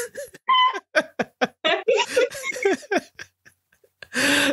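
Laughter in a run of short, rapid bursts, with a louder burst near the end.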